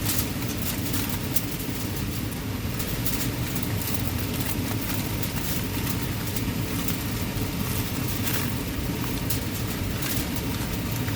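Kitchen range hood fan running with a steady low whoosh, with scattered light clicks over it.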